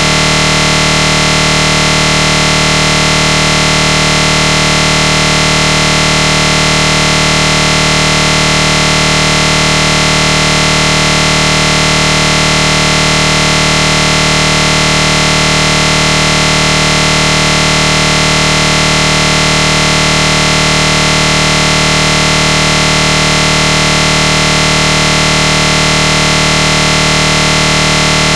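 A loud, unchanging buzzing drone made of many steady tones.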